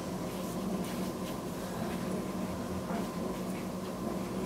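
Soft brushing and dabbing of a round watercolour brush laying paint onto damp cold-pressed watercolour paper, over a steady low hum.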